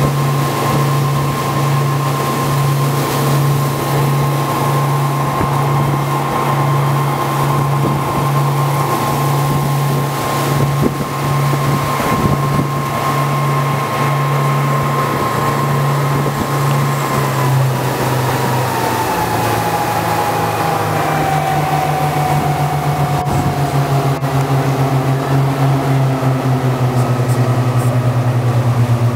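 A passenger shuttle boat's engine runs steadily, with a pulsing low hum and a high whine. About two-thirds of the way through, the whine slides down in pitch and the pulsing changes as the engine is throttled back.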